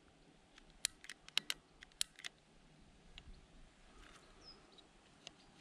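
Engwe Engine Pro 2.0 e-bike's handlebar controls clicking as they are worked by hand: the 8-speed Shimano trigger shifter and the control buttons. It is a quick series of sharp clicks, most of them in the first two and a half seconds.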